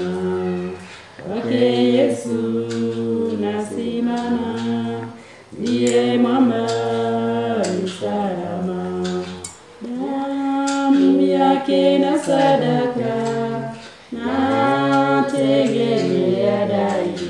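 A group of voices singing a cappella, with no instruments, in sung phrases of about four seconds with short breaks between them.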